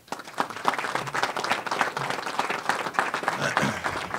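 Audience applauding, dense clapping that breaks out right at the start and keeps going steadily.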